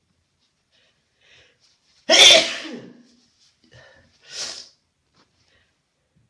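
A person with a stuffy nose sneezes once, a sudden loud burst about two seconds in that trails off over nearly a second. A shorter, quieter breathy sound follows about two seconds later.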